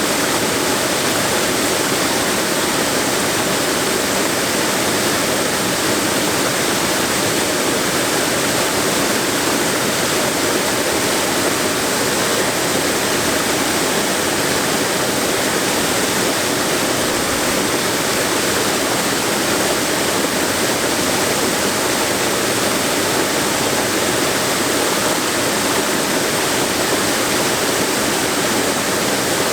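Waterfall and river water rushing steadily, a dense even roar of falling and running water.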